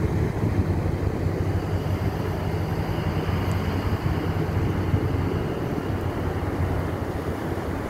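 Passing high-speed ferry's engines drone low and steady, easing a little as it moves off, over the rushing of its wake and wind on the microphone.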